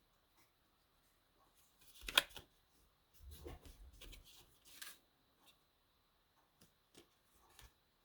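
Cardstock being handled: a short, sharp rustle about two seconds in, then soft rustling and a few light taps.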